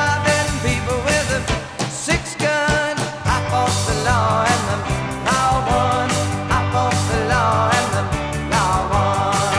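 Rock song with a sung vocal line over bass and a steady drum beat; the bass drops out for about a second around two seconds in.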